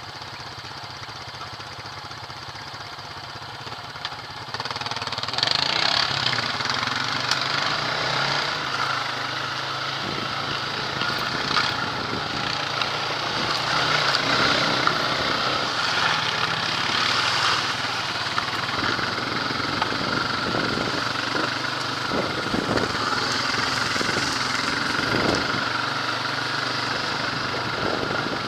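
ATV engine running on a dirt trail ride. It gets clearly louder about four and a half seconds in as the quad picks up speed, then holds steady.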